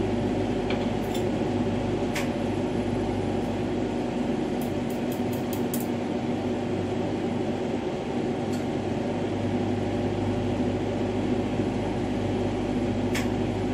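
Lampworking bench torch burning steadily, a continuous rushing hum while glass is worked in its flame. A few faint clicks, and a quick run of light ticks about five seconds in.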